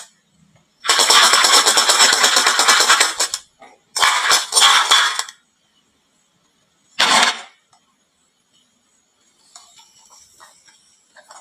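Marbles clattering down a wooden marble run in dense rattling bursts: a long one of about two and a half seconds, a shorter one soon after, a brief one past the middle, then faint scattered clicks near the end.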